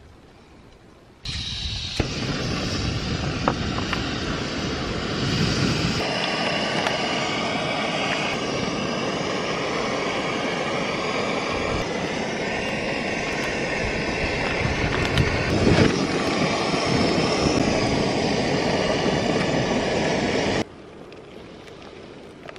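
Camping stove on a butane gas canister running with a steady rushing hiss. It starts abruptly about a second in and cuts off suddenly near the end, with a couple of light clicks early on.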